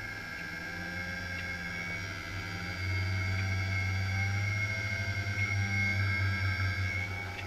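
Steady electrical hum with a thin high whine from a wind-turbine charge regulator switching its wire-wound dump-load resistor. The hum grows louder about three seconds in and wavers after that.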